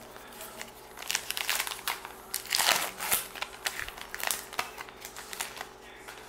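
Plastic-foil wrapper of a baseball card pack crinkling and crackling in the hands as it is opened, in rapid clusters with the loudest burst around the middle.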